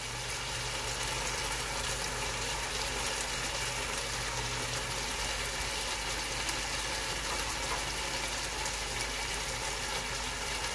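Tomato and pepper sauce simmering in a pot, a steady sizzling and bubbling, with a low hum underneath that stops about halfway through.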